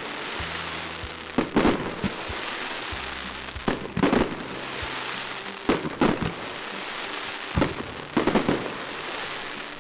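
Diwali fireworks going off: a string of sharp bangs at irregular intervals, some in quick pairs, over a steady crackling hiss.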